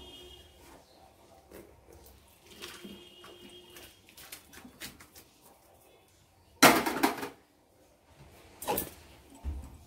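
Freshly split milk (chhana and whey) being poured from an aluminium pot into a straining cloth over a plate, with soft pouring and handling sounds. About two-thirds of the way in, the metal pot clatters loudly, followed by a lighter knock.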